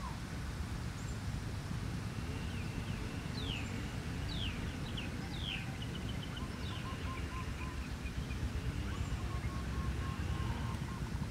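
Birds chirping outdoors: a few quick falling chirps and short runs of repeated notes, over a steady low rumble.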